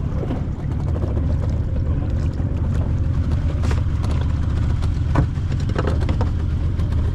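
A boat's engine runs steadily under way, a loud low rumble with water and wind noise over it. A few short, sharper splashes or knocks stand out near the middle.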